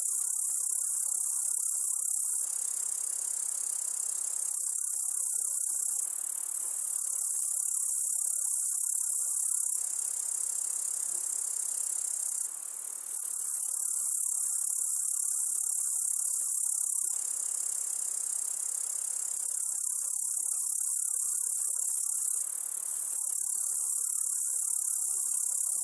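Night chorus of many singing crickets and grasshoppers: a dense, steady, high-pitched trilling. The fainter background beneath it changes abruptly every few seconds.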